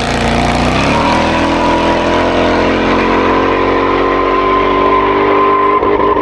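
Competition car's engine at high revs under full throttle. The pitch climbs early on and holds high and steady, then breaks and drops near the end, as at a gear change.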